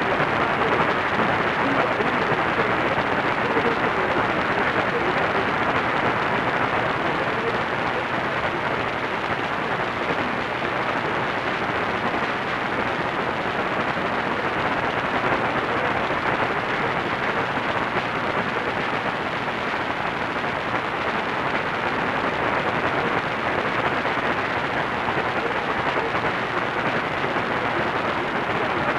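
Steady static hiss from an AM radio receiver tuned to 1490 kHz, the noise of long-distance reception of a weak station signal.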